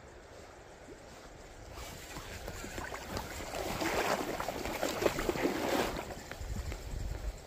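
Water splashing and sloshing. It builds up about two seconds in, is loudest in the middle and dies away near the end.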